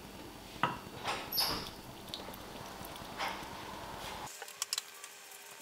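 Faint squeaks and light scraping from a nonstick saucepan of hot caramel tipped over ceramic ramekins as the caramel is poured in, with a few short squeaks spread through the pour and small clicks near the end.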